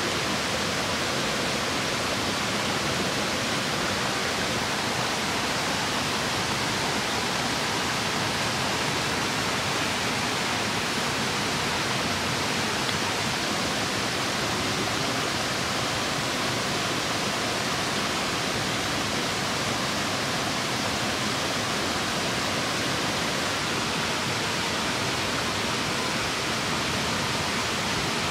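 Stream water running, a steady even rush with no change in level.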